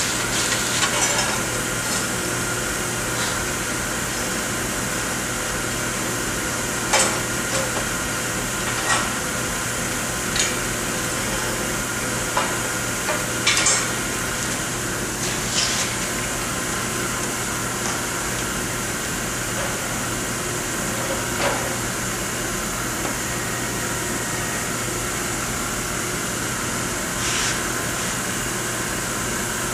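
Oxy-acetylene cutting torch on a Victor track cutter hissing steadily, with scattered sharp clanks of steel as the plate and a heavy steel weight are set on the cutting table. Near the end the torch starts cutting into the edge of the plate.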